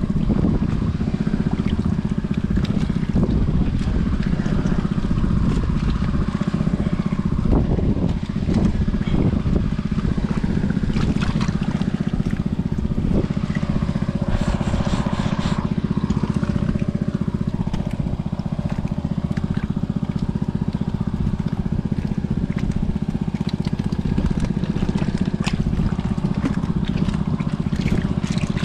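A small engine running steadily at an even speed, with scattered brief knocks over it.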